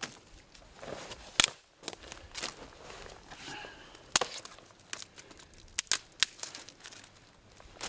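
Dead branches being snapped by hand for firewood: a series of sharp cracks, the loudest about one and a half, four and six seconds in, with rustling and crackling of twigs between.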